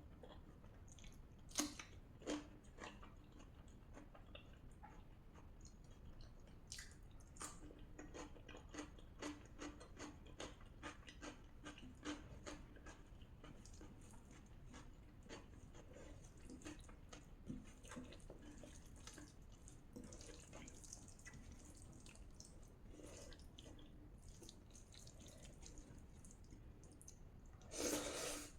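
Faint close-up eating sounds: a person chewing rajma and rice, with many short wet clicks and mouth smacks. Near the end comes one louder, broader burst lasting about a second.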